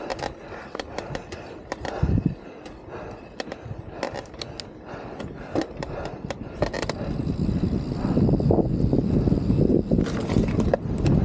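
Mountain bike rolling over a dirt trail: tyre noise with many sharp clicks and rattles from the bike. From about seven seconds in it swells into a louder, denser rumble with wind on the microphone as the bike picks up speed.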